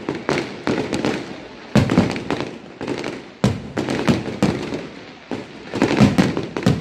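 Aerial fireworks shells bursting in quick, irregular succession: a dense run of sharp bangs and crackles, with louder booms about two seconds in, midway, and near the end.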